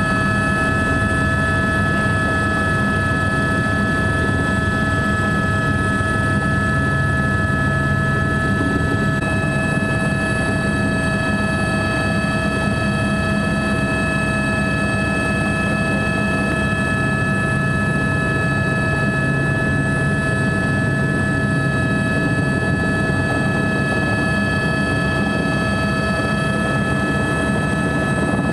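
Helicopter noise, steady throughout: a high turbine whine held on several fixed pitches over the rumble of the engine and rotor.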